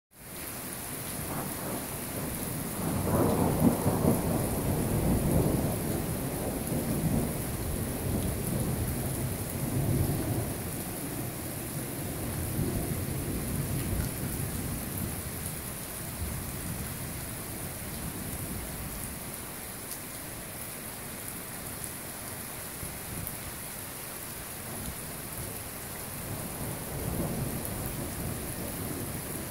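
Thunder rumbling in long low rolls over steady falling rain. The loudest roll comes a few seconds in, with fainter rolls later.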